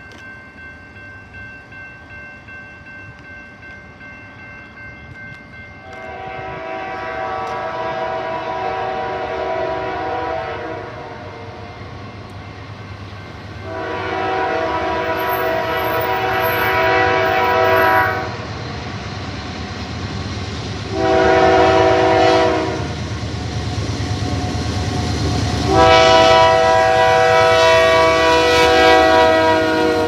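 Union Pacific GE C44ACM locomotive's air horn sounding the grade-crossing signal as the train approaches: two long blasts, a short one, then a long one, starting about six seconds in. A crossing bell rings in the first few seconds, and the low rumble of the locomotive grows as it nears.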